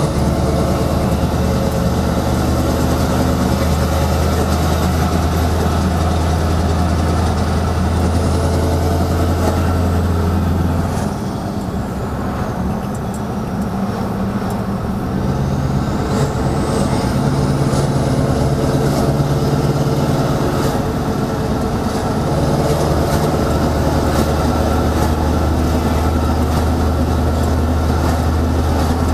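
Scania R620's 16-litre V8 diesel with loud exhaust pipes running steadily while the fully loaded tipper drives along, its deep note dropping away about 11 seconds in and coming back strongly about 22 seconds in.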